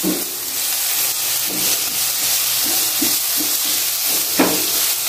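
Chopped onion and garlic sizzling steadily in hot oil in a nonstick frying pan, with a spatula stirring and scraping through them: the sauté (gisa) of the aromatics.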